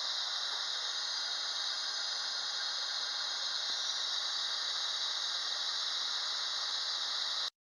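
Metal lathe running with a driveshaft spinning in it, a steady hissing whir that cuts off abruptly near the end.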